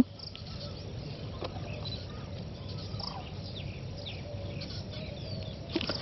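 Faint, scattered calls of distant birds, short chirps and a few brief glides, over a low steady background noise.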